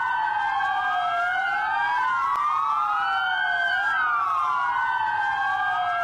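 Several sirens wailing together out of step, each slowly rising and falling in pitch, sounded for the nationwide moment of silence on 10 November.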